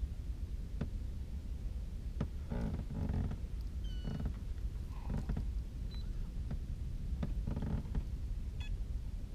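Small boat's motor running steadily at low trolling speed, with a few sharp clicks and short rustling bursts from handling the fishing rod and reel.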